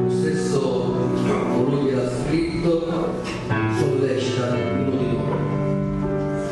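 Live worship music led by a digital stage piano, playing held chords that change every second or two.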